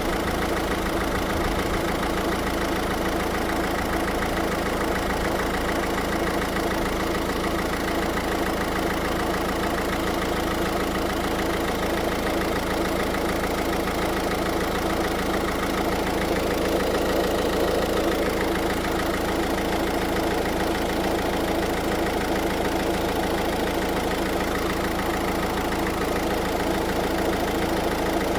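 Car engine idling steadily, kept running while the air conditioning is recharged with refrigerant.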